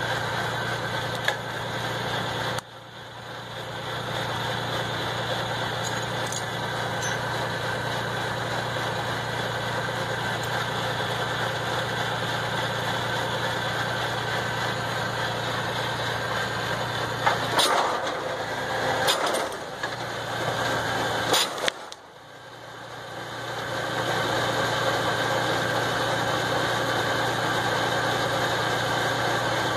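Diesel engine of an MB trac 1000 tractor running steadily to power a Vimek G30 log processor, with a few sharp metallic knocks around three-quarters of the way through. The engine sound drops off abruptly twice, about three seconds in and again shortly after the knocks, and builds back up over a second or two.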